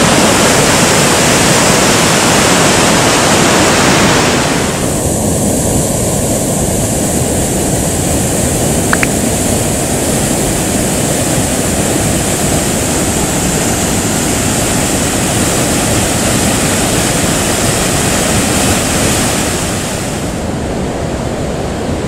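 Water cascading over a stepped concrete weir and gushing from a drain outlet into the river: a loud, steady rush of falling water. About four and a half seconds in the sound turns duller as the higher hiss drops away.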